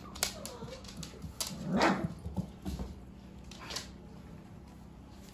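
Dogs whining and yipping, with a short falling whine near the start and one louder yelp about two seconds in. Scattered light clicks run through it.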